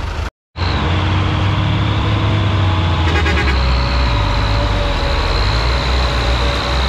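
Farm tractor diesel engines running hard under load as they pull a heavily loaded sugarcane truck, a steady deep rumble with a faint steady whine above it. The sound drops out completely for a moment a fraction of a second in, then carries on.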